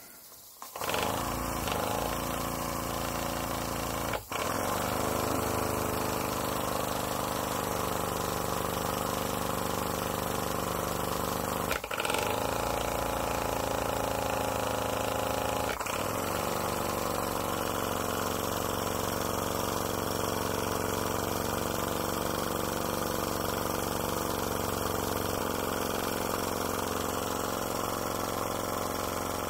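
Graham Industries VR1A double-acting miniature steam engine starting about a second in and running fast on live steam, a steady rapid beat that shifts a little in speed. There are three brief knocks over it.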